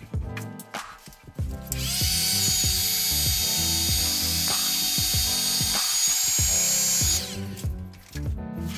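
Electric heat gun blowing steadily with a fan hiss and a faint whine, starting about two seconds in and stopping about seven seconds in. Background music with a stepping bass line plays under it.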